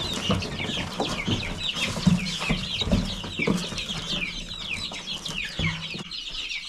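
Chickens clucking, the short low calls coming every second or so, over a dense chorus of high, quick, falling chirps.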